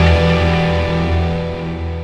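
Theme music for a TV programme's logo animation: a held chord rings on and fades away.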